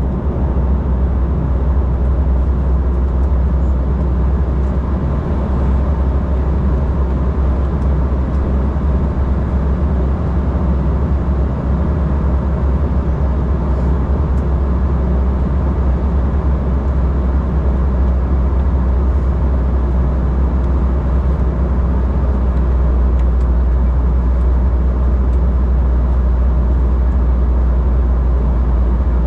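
Steady cabin noise inside an Embraer E195 airliner: the low drone of its twin CF34 turbofan engines under the rush of air over the fuselage, holding even throughout.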